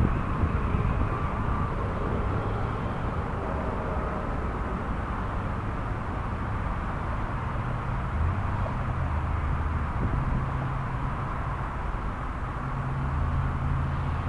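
The 1983 Chevrolet C10 pickup's engine running at a distance, a low steady hum over a constant rushing background, growing somewhat louder near the end.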